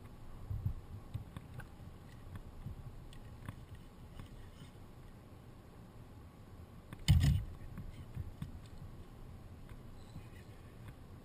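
Low rumble and faint small knocks from a twin-hull WaveWalk W500 kayak sitting on choppy river water, with one loud thump about seven seconds in.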